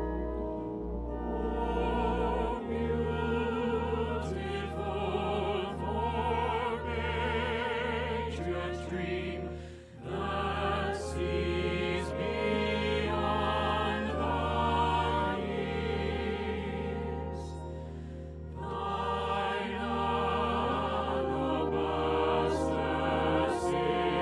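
Classical music with operatic or choral singing, the voices wavering with vibrato over sustained low orchestral notes. The music dips briefly about ten seconds in.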